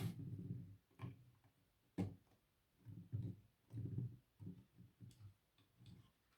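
LEGO pieces being handled and pressed together on a table: a few sharp plastic clicks among a run of soft, irregular knocks.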